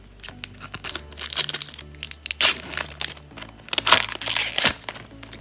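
Plastic wrapper of an Upper Deck hockey card pack crinkling and tearing as it is ripped open and the cards are slid out. The loudest rustles come about two and a half seconds in and again around four seconds in.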